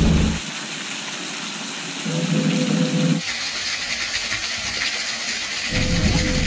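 Small waterfall spilling down a rock face into a lake: a steady hiss of falling water in the middle of the stretch, between stretches of a lower rumble with a faint steady hum.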